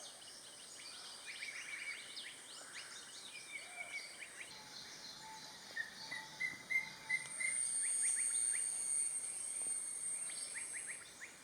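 Forest birdsong with blue-eared and green-eared barbets calling in repeated notes, the blue-eared higher in tone, the green-eared deeper; a clear run of about five quick notes comes a little past halfway. A high, steady insect drone runs underneath, strongest in the second half, and many short chirps from other birds.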